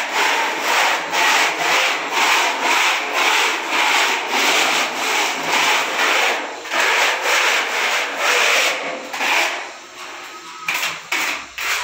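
Steel putty blade scraping wet wall putty across a wall in quick repeated strokes, about two to three a second, thinning to a few shorter strokes near the end.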